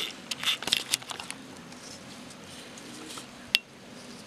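Small hard plastic toys being handled and set down: a quick run of light clicks and taps in the first second, then one sharper click about three and a half seconds in.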